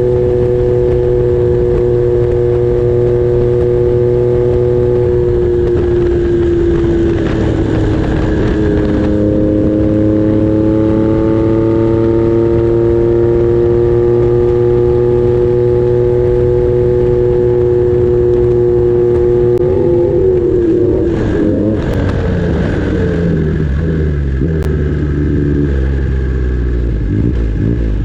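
Triumph Trident T150V three-cylinder engine with a 3-into-1 exhaust, running at a steady, slightly wandering pitch. About twenty seconds in, the pitch drops and turns rougher as the revs fall away.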